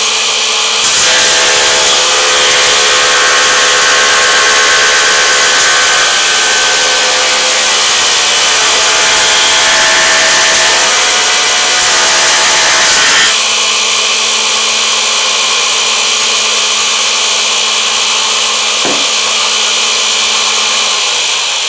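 Vintage Sears Craftsman 6-inch hand-fed wood planer with a cast-iron body and electric motor, running with a steady hum. For the first dozen seconds its cutter head is taking a cut through a board, which is louder and rougher, and the cut ends abruptly. The machine then runs free without load.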